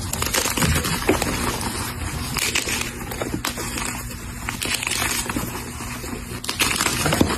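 A dyed gym chalk block being crushed and crumbled, with continuous crunching and many small crackles.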